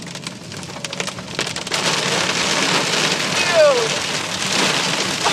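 Heavy rain hitting a moving car's windshield and roof, heard from inside the cabin. It starts as separate drop ticks and thickens into a steady downpour a couple of seconds in. A brief falling whine comes about three and a half seconds in.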